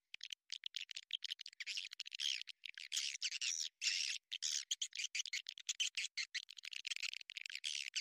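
Swiftlets twittering and chirping in a dense, fast chorus: a swiftlet-house lure call (suara tarik). The calls come in choppy runs with many brief silent gaps between them.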